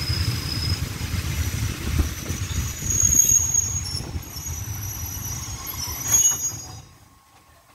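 Passenger train coach rumbling over the rails as it slows, with thin high squeals from the wheels and brakes. The noise falls away to near quiet about seven seconds in as the train comes to a stop.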